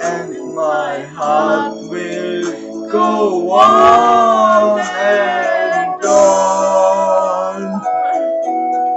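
A man and a woman singing along over recorded backing music, with two long held notes whose pitch wavers.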